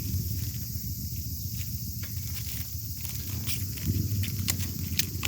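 Steady high drone of insects, with light clicks and rustles of parts being handled in the second half.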